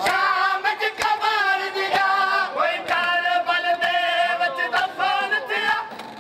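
Men chanting a Muharram nauha (mourning lament) in unison, with sharp matam strikes, hands beating on chests, in a steady rhythm about once a second.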